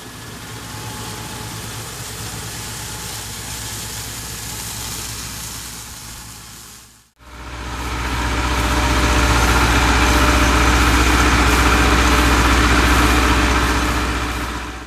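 An engine running steadily at a constant speed, in two clips joined by a short fade; the second clip, from about seven seconds in, is louder.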